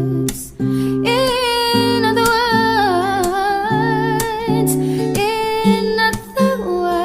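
Background music: a melody held and bent with vibrato, sung or played, over plucked guitar and bass chords.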